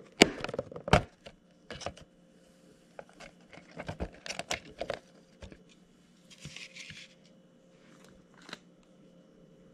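Thin clear plastic deli cup lid being pried loose and pulled off by hand: irregular sharp clicks and crinkling snaps of the plastic, loudest in the first second, with a short rustle a little after the middle.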